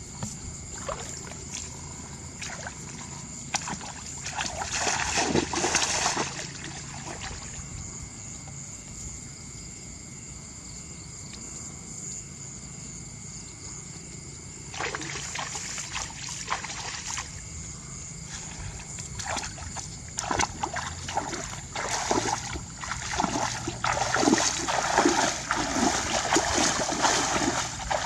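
Water splashing and sloshing in irregular bursts, as hands or feet work in shallow water; the splashes come thickest and loudest near the end.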